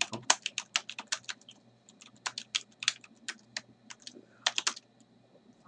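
Typing on a computer keyboard: irregular runs of keystrokes with a short pause in the middle and a quick flurry of presses shortly before the typing stops.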